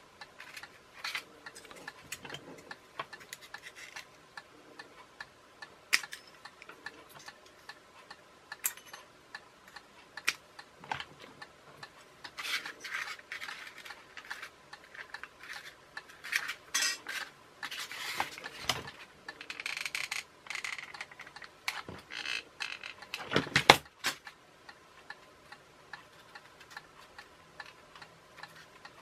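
Hands handling small foam, plastic and aluminium-can parts on a workbench: scattered clicks and taps with stretches of rustling, and one louder knock late on.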